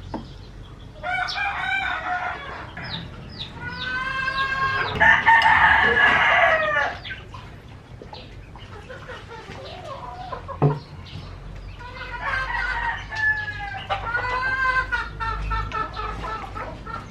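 Rooster crowing, several drawn-out crows, the loudest and longest about four to seven seconds in.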